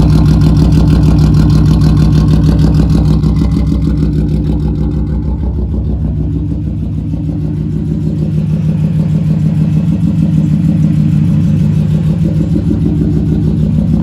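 Mercedes 190E inline-six idling steadily through a loud straight-piped exhaust with no muffler, a little quieter in the middle.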